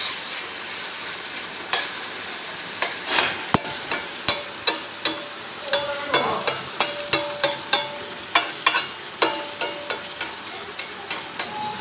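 Minced meat and chopped tomatoes sizzling in a hot pan, with a metal spoon stirring and knocking against the pan. From about three seconds in there is a quick run of sharp clicks.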